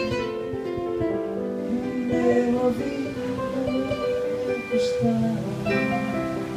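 Acoustic guitar strummed with a keyboard playing along in an instrumental passage of a song, held notes changing every second or so.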